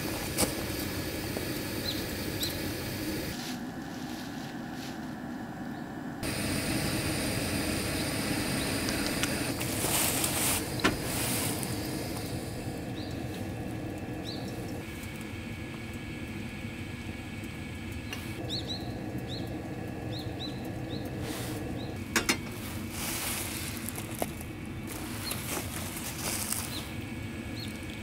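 Light metal clinks of a camp kettle and cookware being handled, over a steady low rush, with a few faint high chirps now and then.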